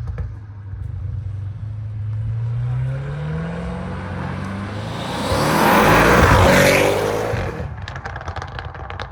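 A heavily tuned twin-turbo V8 performance car accelerating with its revs climbing, then passing close by, loudest a little after the middle and fading away.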